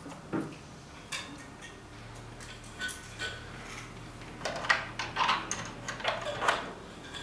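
Light clicks, taps and rattles of hands handling the model plane's wing struts and their small pin-and-clip fittings. The clicks come scattered at first and most busily from about four and a half to six and a half seconds in, over a faint low hum.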